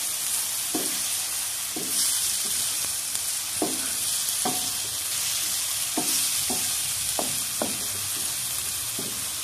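Chopped onion, tomato and ground spices sizzling in oil in a pan while a wooden spatula stirs them, with short falling squeaks as it scrapes the pan about once a second. The spice masala is being fried down.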